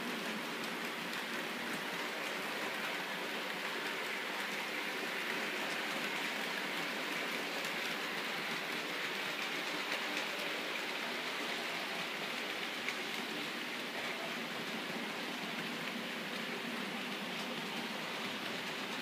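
OO gauge model trains running on the layout: a steady, even rattling hiss of small metal wheels on the track and the locomotives' motors, with a few faint clicks.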